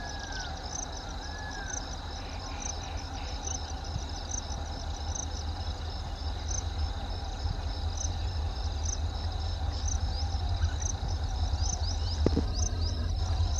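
Insects chirping in a steady pulse of about two chirps a second over a high steady buzz, with a low rumble from an approaching EMD WDP-4D diesel locomotive growing slowly louder. A bird gives short whistles near the start.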